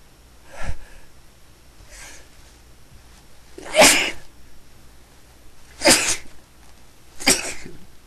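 A person sneezing: three loud sneezes about two seconds apart in the second half, the first the loudest, after a smaller burst near the start. It is part of a sneezing fit the person suspects is an allergy.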